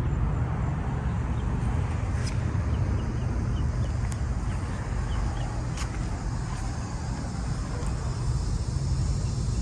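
Carrier Comfort Series air-conditioner condenser running: a steady hum of the condenser fan and compressor with a low drone underneath, unchanging throughout.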